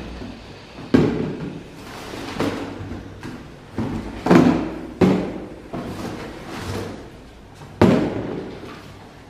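Hollow plastic kitchen storage containers being lifted out of a cardboard box and set down on a table: a run of knocks and clatter, with four sharper hollow knocks that ring briefly.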